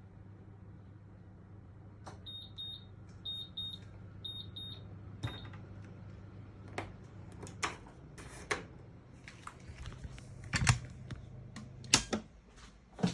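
Oven's electronic beeper sounding three quick pairs of high beeps about a second apart, then one more beep. After that come a run of clicks and knocks, loudest near the end, over a low steady hum that stops shortly before the end.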